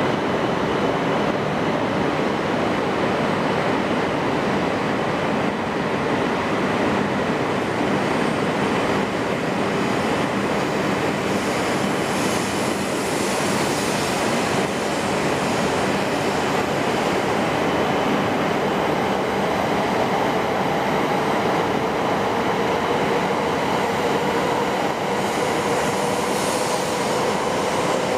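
Senseki Line electric commuter train running steadily on the rails, a continuous rumble of wheels and track noise with faint whines; one whine rises slightly near the end.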